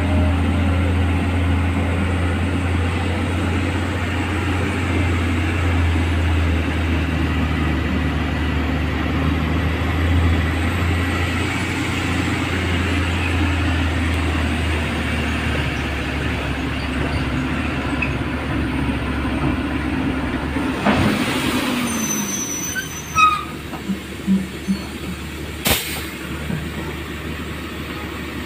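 Tata Prima tipper truck's diesel engine running steadily under load, heard from inside the cab with a deep, even hum. About three-quarters of the way through there is a short air-brake hiss and the engine note drops to idle, followed by a few clicks and a sharp knock.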